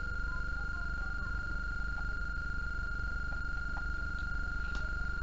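A steady high-pitched tone with a low hum underneath, and a few faint clicks.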